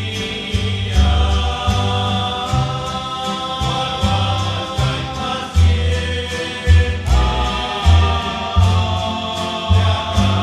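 Rondalla of male voices singing a slow song in close harmony, with held notes over strummed guitars and a plucked bass line.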